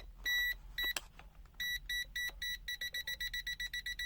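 Prokit MT1280D multimeter's non-contact voltage (NCV) beeper sounding short, high, steady-pitched beeps as the sensor picks up a live cable. The beeps come irregularly at first, then quicken into a rapid even train of about six a second near the end as the detected field grows stronger. There is a single click about a second in.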